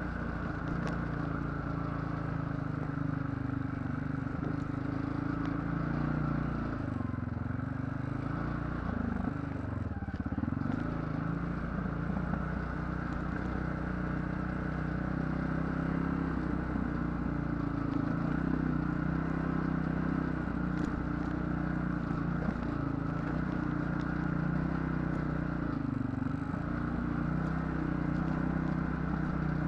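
ATV engine running steadily under throttle, its pitch dropping and rising again about a third of the way in and once more near the end as the engine speed changes.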